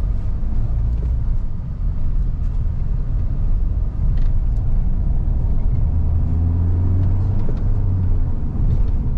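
Mahindra XUV700 driving in traffic, heard from inside the cabin: a steady low engine and road rumble that swells into a louder hum for a couple of seconds about six seconds in.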